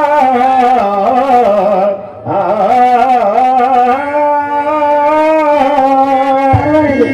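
A man singing a slow Carnatic-style melodic line into a microphone, with long, wavering held notes and a short breath about two seconds in.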